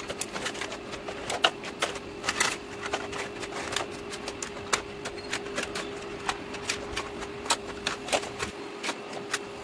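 Plastic toy vehicles clicking and clacking against each other as they are handled in a basket. The light, irregular clicks come several times a second over a steady low hum.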